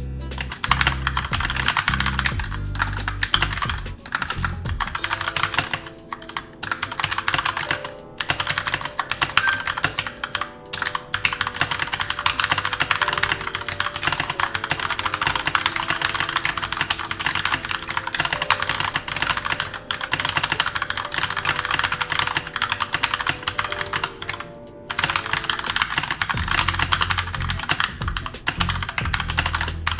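Fast, continuous typing on a Keychron K2 mechanical keyboard: a dense clatter of keystrokes at over 100 words per minute, broken by a few short pauses. Background music plays softly underneath.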